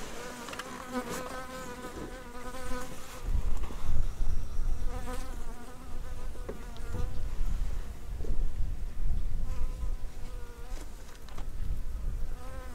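A flying insect buzzing close by, its wavering drone coming and going several times as it passes. Underneath, from about three seconds in, there is a low uneven rumble.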